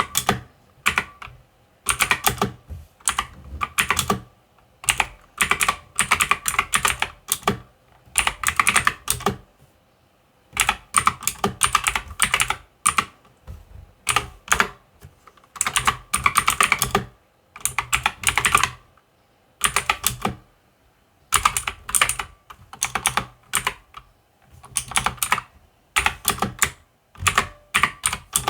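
Typing on a mechanical keyboard: runs of rapid, crisp keystroke clicks lasting a second or two, broken by short pauses.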